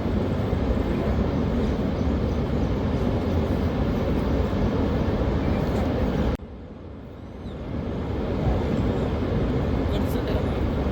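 Steady rush of floodwater pouring through a dam's opened spillway crest gates. It drops away abruptly about six seconds in and builds back up over the next second or two.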